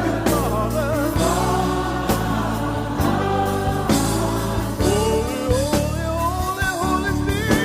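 Gospel worship song with choir-style sung vocals over a sustained instrumental backing.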